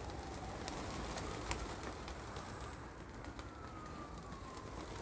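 Domestic pigeons cooing faintly, with a few light taps, over a faint tone that slowly falls in pitch twice.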